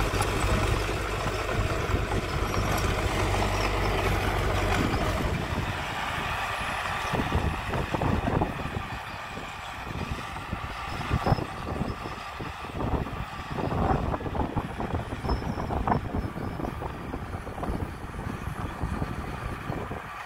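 Small crawler bulldozer's diesel engine running steadily. About five seconds in, the engine drops lower and is mixed with irregular gusty buffeting and rattles.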